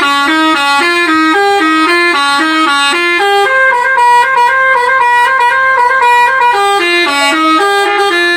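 Telolet bus air horn (Alzifa Airhorn V2.0) playing a loud melody of clear notes that step up and down in pitch, quick notes at first, then longer held notes in the middle before quickening again.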